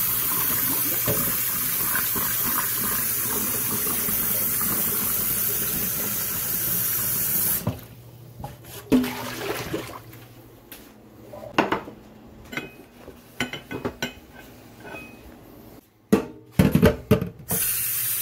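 Kitchen tap running into a small saucepan in a stainless steel sink while the pot is rinsed, a steady rush of water that stops about eight seconds in. Then scattered knocks and clinks as the pot is handled against the sink, and the tap starts again near the end, filling the pot.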